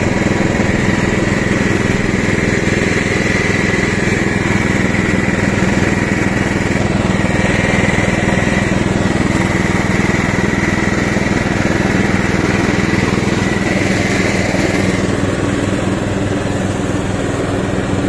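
Ride-on lawn tractor's 12.5 hp engine running steadily under load as its two mower blades cut tall, heavy grass. A higher whine over the engine note drops away about fifteen seconds in.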